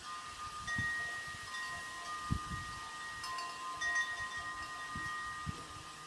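Chimes ringing: several clear metallic tones struck at uneven moments, each ringing on and overlapping the others, with a few soft low thumps.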